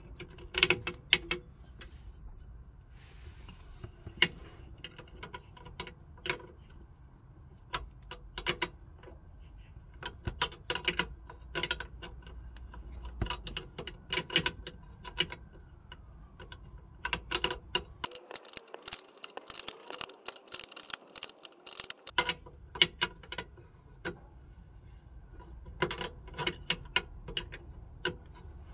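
Small spanner working the brake pipe union nut into a rear drum-brake wheel cylinder, giving short bursts of sharp metallic clicks every second or two as the tool is turned and repositioned on the nut.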